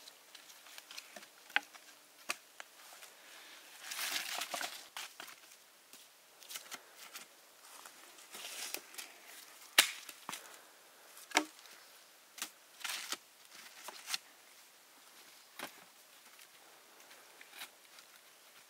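Irregular sharp clicks and knocks, a few of them louder, with short stretches of rustling or scraping between them.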